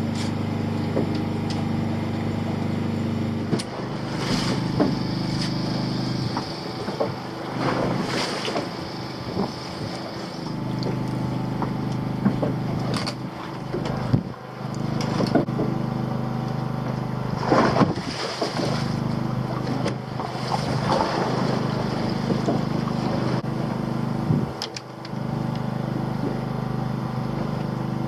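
Fishing boat's engine running steadily, its note shifting a few seconds in and again near the end, with occasional knocks and clatter on board.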